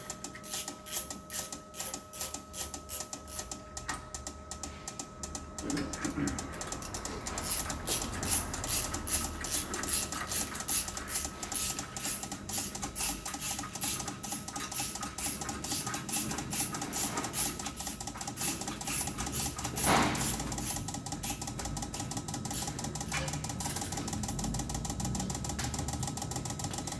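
Petrol fuel injectors pulsing on an injector test-and-cleaning bench: a rapid, even clicking over a steady hum from the machine. The clicking grows faster and louder about six seconds in as the bench raises the simulated RPM. The bench is checking the injectors for the cause of the engine's misfire.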